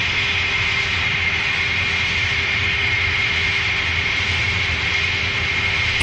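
A steady machine drone: a rumble and hiss with a constant high whine, cutting off abruptly at the very end.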